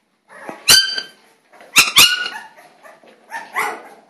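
Young puppy yelping: three sharp, high-pitched yelps in the first two seconds, the last two close together, then softer cries near the end.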